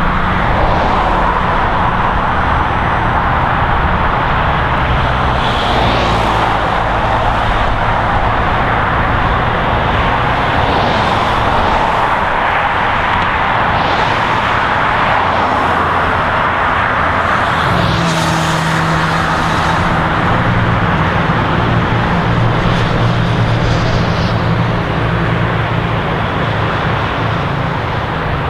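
Dense, steady highway traffic: a continuous stream of cars, with single vehicles swishing past every few seconds. A deeper engine drone joins about two-thirds of the way through.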